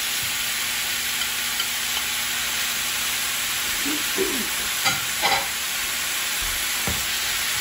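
Oyster and wood ear mushrooms, fried tofu and freshly added red bell pepper strips sizzling steadily in hot oil in a skillet. A few brief clicks come a little after the middle.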